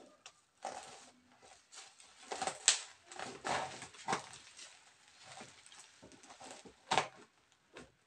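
Thick plastic shipping wrap rustling and crinkling in irregular bursts as hands grip and pull at a wrapped parcel. Two louder sharp sounds stand out, about a third of the way in and near the end.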